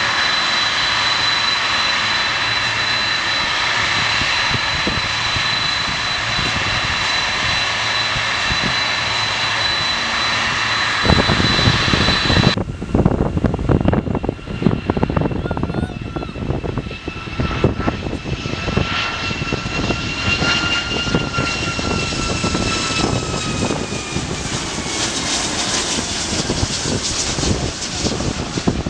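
Airliner jet engines: first a steady high whine from a Boeing 747 on the ground. Then a Boeing 757 on final approach comes close, with a deep rumble and engine tones that hold steady and then drop in pitch as it passes by.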